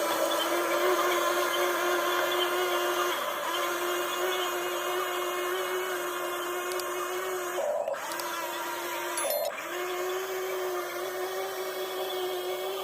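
Small electric motor of a radio-controlled construction toy whining at a steady pitch, stopping briefly three times as the controls are released and pushed again.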